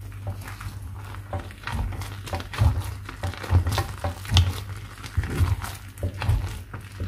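Wooden spoon stirring and pressing thick geat dough in a nonstick pot, the dough working against the pan with irregular soft thumps and knocks about once a second.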